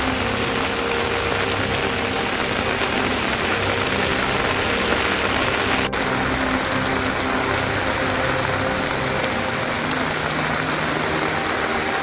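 Steady rain falling, an even hiss of drops with a brief click about halfway through.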